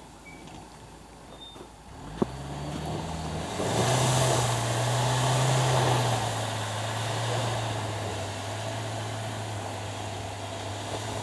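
Off-road 4x4's engine revving under load as its mud-terrain tyres spin in snow and mud, flinging dirt and gravel. The engine comes up about two seconds in, just after a sharp click, is loudest with the spray of dirt a couple of seconds later, then holds a steady drone.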